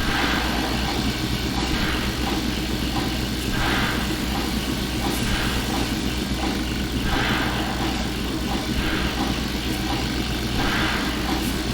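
A steady engine-like rumble with a faint regular tick about twice a second and occasional swells of hiss.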